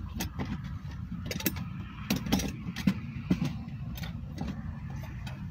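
Irregular knocks, clicks and clatter of belongings being handled and packed, over a steady low rumble.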